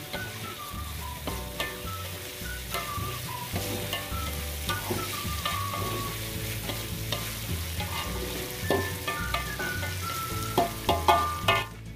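Spatula stirring and scraping shredded fish and chili paste around an aluminium wok, the paste sizzling as it fries, with a run of louder scrapes and knocks against the pan near the end.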